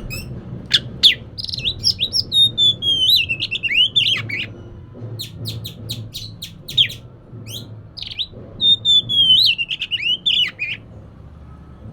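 Oriental magpie-robin (kacer) singing a loud, varied song: quick sharp notes mixed with long warbled phrases that slide downward in pitch. It stops shortly before the end, leaving a low steady hum.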